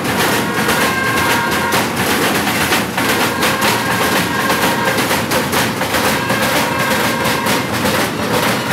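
Many large cowbells worn at the waist by Perchten clanging without pause as the wearers move, a loud, dense jangle with a few bell tones ringing through.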